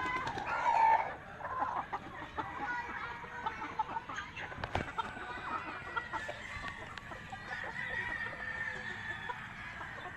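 A flock of native chickens clucking and calling over one another, with a louder call about a second in and a single sharp click near the middle.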